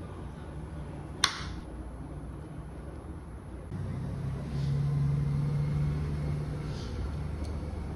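A single sharp click about a second in, as a knife cuts through a mango and meets a plastic cutting board, over a steady low rumble. A low steady hum comes in just before the middle and stops near the end.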